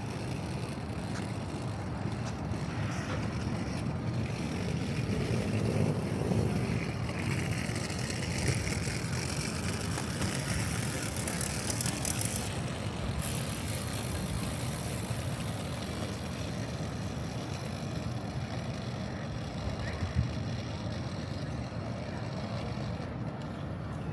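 Steady outdoor urban background noise with a low rumble, swelling about six seconds in, with a single sharp knock near the end.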